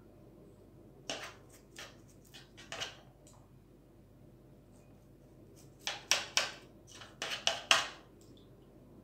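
Pastry brush clicking and scraping in a small glass bowl of beaten egg while egg wash is brushed onto bread rolls: a few light clicks in the first three seconds, then a quicker cluster of sharper clicks about six to eight seconds in.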